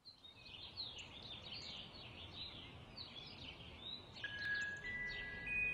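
Birds chirping, a quick run of many short, falling chirps. About four seconds in, held chime-like music notes come in over them.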